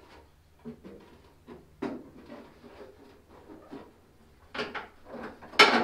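Carbon fiber rear wing being handled and set down onto its metal uprights: several short knocks and clunks, the loudest near the end.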